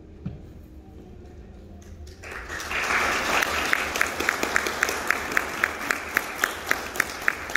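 Audience applause breaking out about two seconds in, with one person's loud, even claps close by at about four a second.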